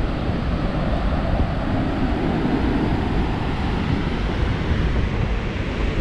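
Wind buffeting the microphone over the wash of surf on the shore, a steady rumbling noise.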